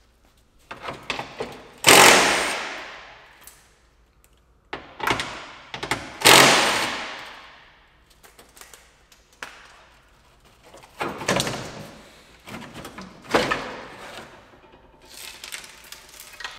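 Under tray of a Nissan GT-R being pulled down and handled: a few sudden thunks and rattles of the panel. The two loudest, about 2 and 6 seconds in, each trail off over a second or two, and smaller knocks follow near the end.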